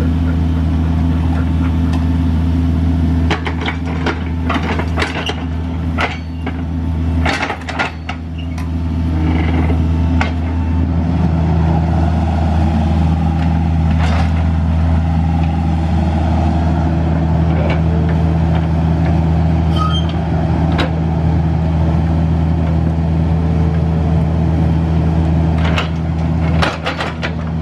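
John Deere 50G compact excavator's diesel engine running steadily under load while it digs. Sharp clanks and knocks come in a cluster a few seconds in and again near the end.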